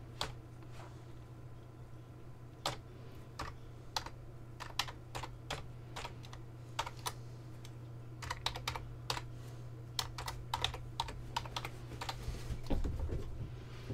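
Typing on a computer keyboard: keystrokes in short, irregular runs, over a steady low hum.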